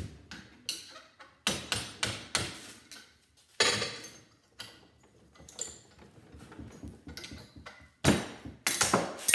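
Hammer driving a screwdriver, used as a punch, to knock the copper core out of an aluminum heat sink clamped in a bench vise: a string of sharp metal knocks at uneven intervals, the hardest about three and a half seconds in and again near the end.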